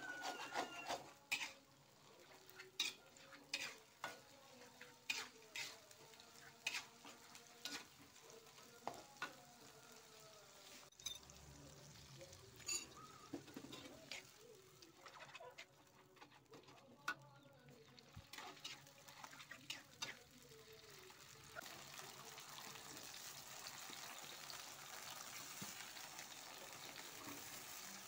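Metal spatula stirring and scraping a spice paste frying in oil in a wok, with many sharp clicks of the spatula against the pan over a soft sizzle. The sizzle grows steadier and louder in the last few seconds.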